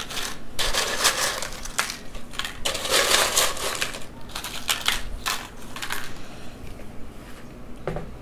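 Dry corn tortilla chips crackling and rustling as they are spread by hand over a metal pizza pan, in a string of short, crisp crunches that thin out after about six seconds.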